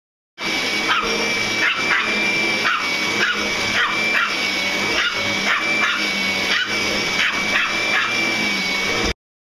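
Pomeranian barking repeatedly, short sharp barks about one to two a second, at a running Kirby upright vacuum cleaner whose motor gives a steady high whine. Both start suddenly about half a second in and cut off suddenly near the end.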